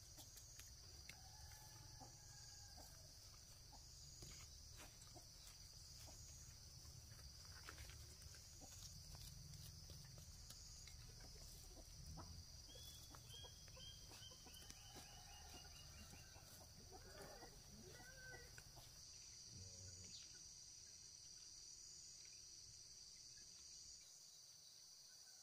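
Quiet rural ambience: a steady high drone of insects, with a few faint animal or bird calls, among them a short run of descending chirps about halfway through.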